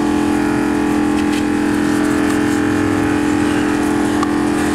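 Low-pressure washer running with a steady motor hum and the hiss of water spraying over an engine bay, rinsing off degreaser.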